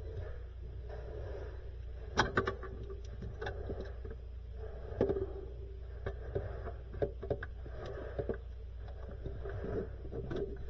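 Scattered clicks and rustling of hands handling wiring and plastic plug connectors, over a steady low hum.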